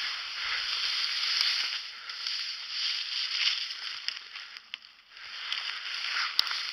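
Leaves, ferns and brush rustling and crackling as a person crawls on hands and knees through thick undergrowth, with a few sharp clicks about four seconds in and a louder one near the end.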